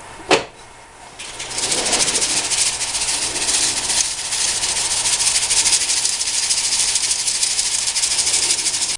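Finely crushed gold ore being shaken through a hand sieve into a gold pan: a steady rattling hiss of grit on the mesh, which starts about a second and a half in after a sharp knock.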